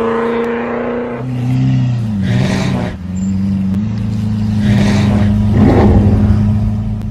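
Car engine sound effect in an animated intro: a steady engine note that shifts pitch in steps, with two rushing whooshes about two and five seconds in.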